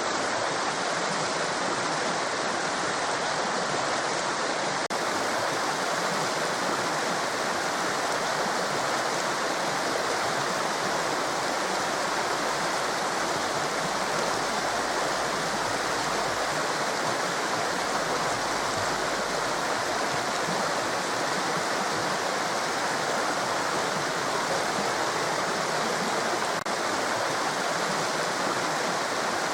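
Waterfall: falling water rushing and splashing in a steady, unbroken wash of noise.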